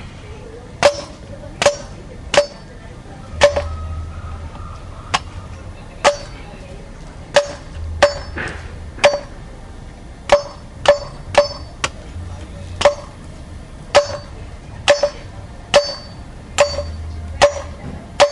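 Machete chopping a coconut: about twenty sharp strikes, one every half second to a second, each with a short metallic ring from the blade, with a pause of a couple of seconds after the fourth.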